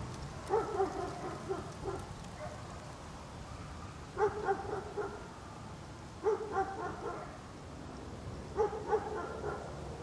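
A dog barking in four quick bursts of several barks each, a couple of seconds apart, over a low steady background noise.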